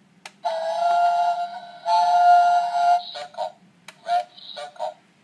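Electronic sound chip of a battery-powered baby toy plane playing a tune through its small speaker after a button press: a click, then long held notes, then a run of short notes.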